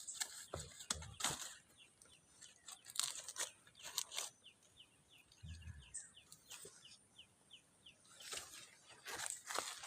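Faint scattered crackling and crunching, like leaves or material being handled, with a bird's rapid series of short downward chirps, about four a second, in the middle.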